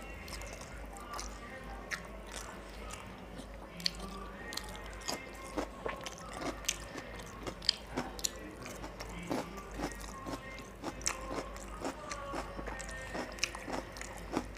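Close-miked mouth sounds of a person eating rice and chicken curry by hand: wet chewing, lip smacking and many sharp clicks and small crunches. Faint background music runs underneath.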